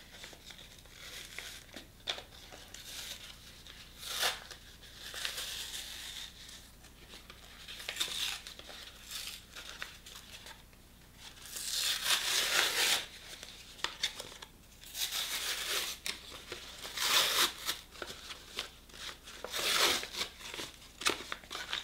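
Thin plastic film being peeled by hand off the paper of a laminated pouch: irregular crinkling and short tearing rips as the film separates, loudest about halfway through and again near the end.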